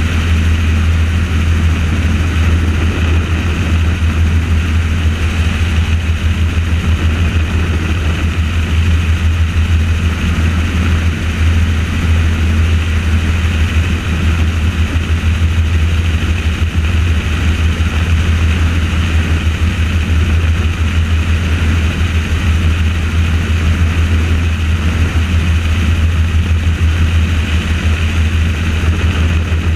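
Helicopter in flight: its rotor and engine give a steady, loud low throb with a rushing hiss above it.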